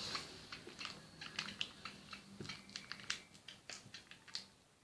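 Plastic Frubes yogurt tube being torn open by hand: faint, irregular crinkling and small clicks of the plastic.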